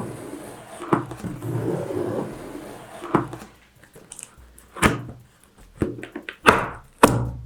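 Cardboard packaging of a large TV carton being opened and handled: rustling with about five sharp knocks and thunks spread through it.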